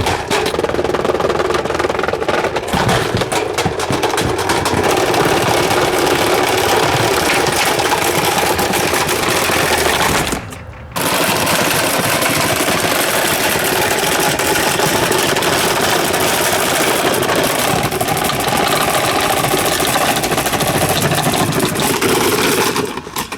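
Running vintage Super Deluxe table fan, damaged and bouncing around, clattering and rattling loudly with rapid continuous strikes. The sound drops out briefly about ten seconds in.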